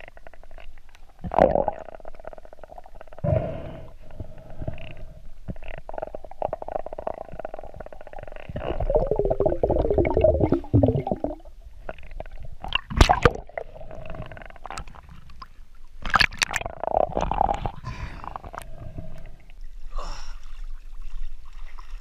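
Muffled underwater rumbling and gurgling picked up by a GoPro inside its waterproof housing. There are a few dull thumps, a warbling stretch of bubbling about halfway through, and a few sharp knocks after it.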